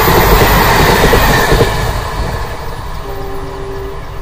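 Passenger train coaches running past at speed, the wheels and bogies rumbling loudly, then the noise drops away about two seconds in as the last coach passes and recedes. A steady two-note tone sounds for about a second near the end.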